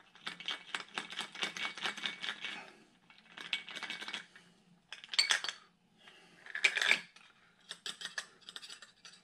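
Ice rattling and clinking inside a stainless steel cocktail shaker as the drink is strained out through its top, in two spells of rapid clicking. After that come two sharper metal clinks and some lighter clicking as the shaker is handled and its cap fitted.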